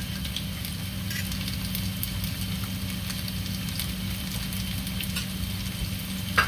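Shredded-potato patties sizzling in oil in a skillet, with scattered small crackles over a steady low hum. A single sharp knock near the end.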